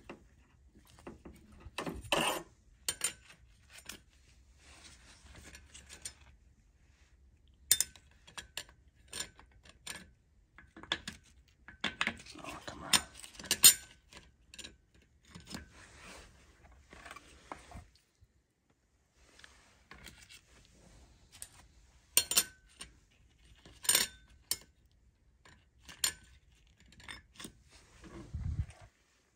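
Clutch plates and other small steel parts of a ZF 8HP55 automatic transmission clinking and clicking as they are handled and stacked during a clutch pack rebuild: sharp metallic clinks at irregular intervals, some with a brief ring, and a dull knock near the end.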